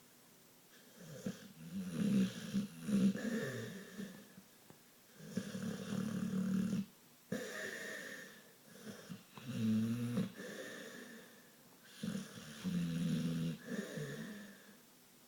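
Pitbull snoring in her sleep: about five long snoring breaths, each one to three seconds, separated by short quiet gaps.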